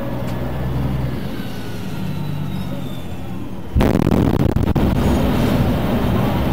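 A steady low drone, then about four seconds in the sudden, very loud blast of a natural-gas explosion levelling a building. A heavy rumble carries on after the blast.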